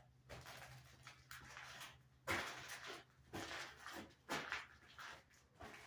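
Slow footsteps on a bare floor, about one a second, louder from about two seconds in, over a faint steady low hum.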